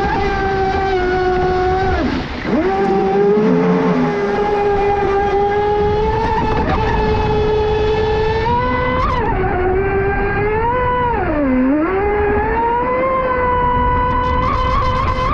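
Pro Boat Sonicwake V2 36 RC boat running at speed on 6S power: the high electric whine of its brushless motor and drive over a rush of water. The pitch drops sharply and climbs back about two seconds in, and dips again near eleven seconds, as the throttle is eased and reapplied.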